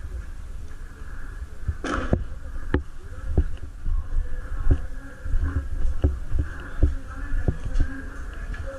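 Irregular sharp clicks and knocks, roughly one every half to one second, over a steady low rumble and a faint steady buzz. There is one longer rustling burst about two seconds in.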